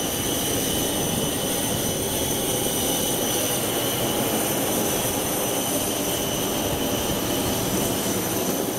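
Parked Airbus A321 on the apron: a steady rush of air with several high, steady whining tones.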